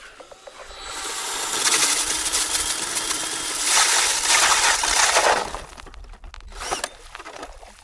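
Cordless drill driving an ice auger through thin pond ice, a grinding, crunching bore that builds from about a second in and stops suddenly about five and a half seconds in.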